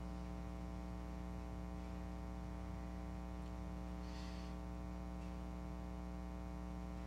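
Steady electrical hum in the meeting room's microphone and sound system, unchanging throughout, with a faint brief rustle about four seconds in.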